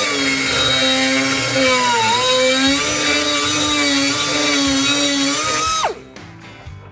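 Electric grinder running while grinding out a hole to enlarge it. Its pitch sags about two seconds in as it is pressed into the metal, rises again as the load comes off, and the tool winds down and stops near the end.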